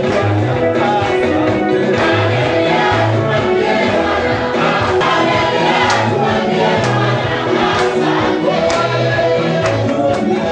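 Gospel music with singing voices over a steady bass and beat.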